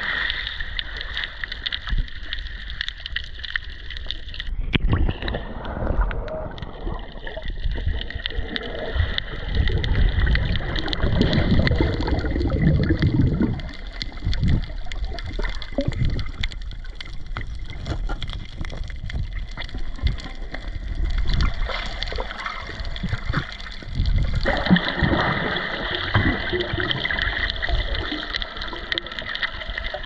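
Muffled underwater gurgling and rushing water, as heard by a submerged camera, with a steady high tone underneath. The level rises and falls throughout, and shifts around five seconds in and again near the end.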